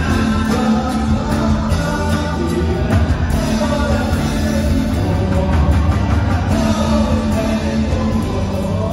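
Live band playing a song loudly through PA speakers, with guitars and bass under a sung melody.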